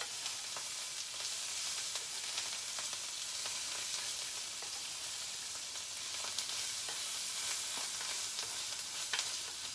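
Dried salted anchovies in sambal sizzling in a nonstick frying pan while being stirred with a spatula: a steady frying hiss with scattered light clicks and scrapes from the spatula.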